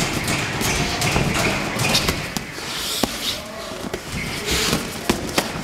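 Gloved punches landing during boxing sparring: a scattered run of sharp smacks and thuds, a few landing harder than the rest, with shuffling footwork.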